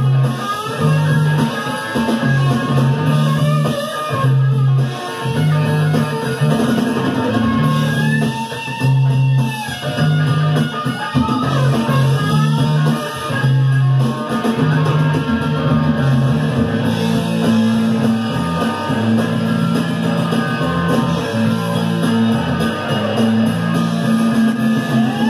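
Live rock band playing an instrumental passage with no singing: electric guitar over a drum kit.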